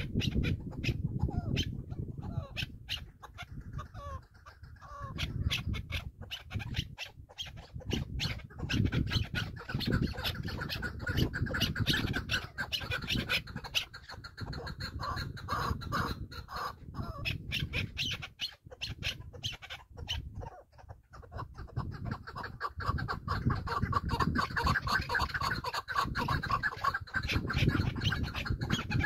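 Partridge calling in long runs of rapid, repeated clucking notes, broken by short pauses, over a low rumble of wind on the microphone.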